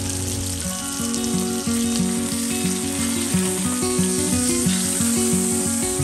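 Bacon-wrapped chuck roast sizzling in hot oil in a cast iron frying pan as it sears, a steady hiss. Background music with a plucked-sounding melody comes in about a second in.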